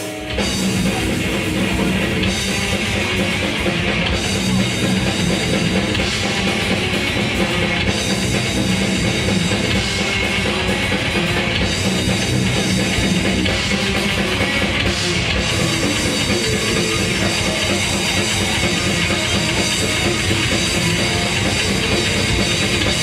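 Death metal band playing live, with distorted electric guitars, bass and fast, dense drumming. The full band kicks in at once right at the start and plays on without a break.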